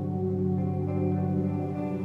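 Ambient background music with long held chords; the low notes shift near the end.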